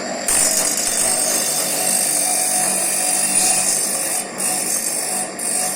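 Kucharczyk TYP2003 CNC saw-blade sharpener running, its grinding wheel grinding the teeth of a circular saw blade with a steady high hiss. The hiss sets in sharply just after the start and briefly lets up twice near the end.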